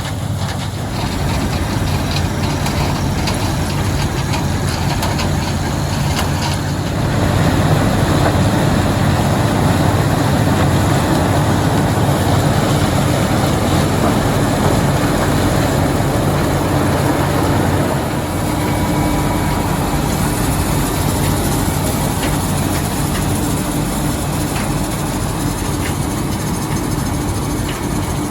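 Vintage farm machinery engine running steadily with mechanical noise. It grows louder for about ten seconds partway through.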